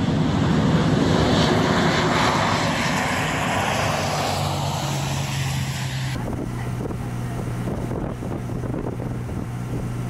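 Propeller plane's engines running on an airstrip: a loud rushing drone over a steady low hum. The rushing swells over the first few seconds, then its hiss cuts off abruptly about six seconds in, leaving the low hum.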